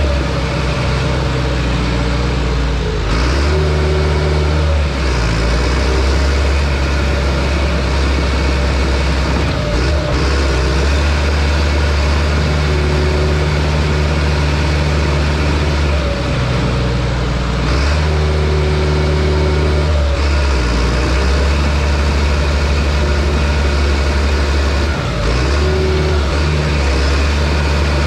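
John Deere crawler dozer's diesel engine running hard and steadily. Its pitch drops and climbs back several times as it works.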